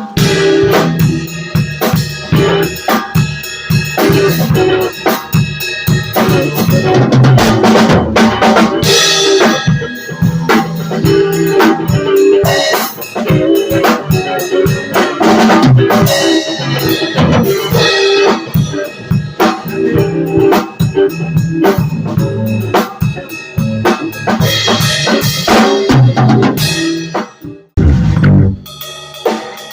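A band playing live, led by a drum kit with snare and bass drum hits and cymbal crashes over bass and other instruments. The playing stops for a moment near the end, then starts again.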